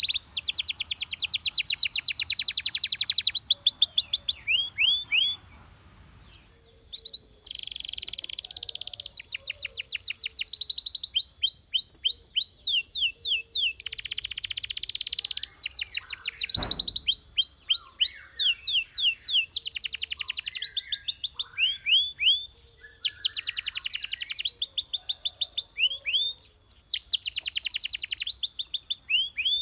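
Domestic canary singing: long fast trills of rapidly repeated notes and quick sweeping rolls, broken by a short pause about six seconds in. A single brief low knock sounds about midway.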